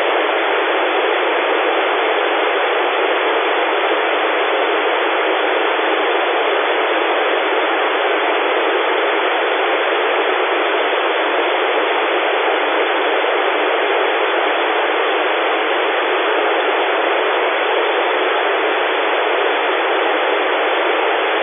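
Steady, even hiss of an FM radio receiver with no signal present: an Airspy Mini SDR demodulating narrowband FM on the ISS 145.800 MHz downlink while the space station is not transmitting.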